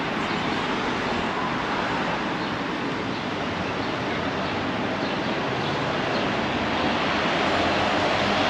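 Steady street ambience of road traffic, an even rushing noise that grows a little louder near the end as a vehicle comes closer.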